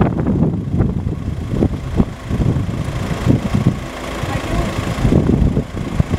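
Strong wind buffeting the microphone: an uneven low rumble that surges and drops in gusts.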